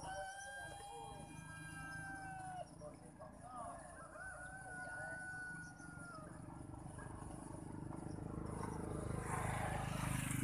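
A rooster crowing twice: one long held crow at the start and another about four seconds in, over a steady low rumble that swells near the end.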